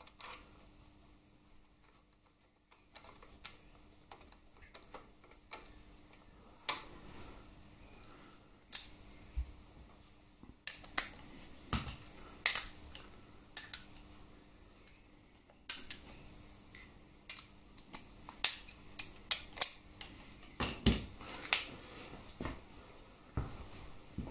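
Metal hand tools and a socket clinking and knocking irregularly against steel parts while a bolt is worked into a motorcycle frame's swingarm pivot, with sharp clicks sparse at first and coming thicker in the second half.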